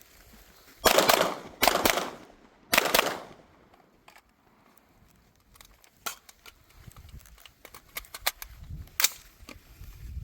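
Three gunshots in quick succession, each with a short echo, followed by a scatter of quieter sharp clicks and knocks.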